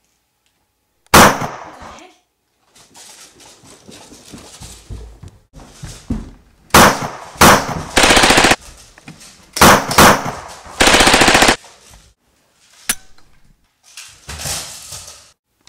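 Gunfire: one loud shot about a second in, then from about seven seconds on more single shots mixed with two short bursts of rapid automatic fire.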